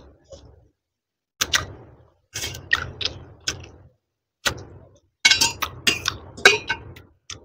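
Close-miked noodle eating: short bunches of sharp clicks and clinks, with silences between them.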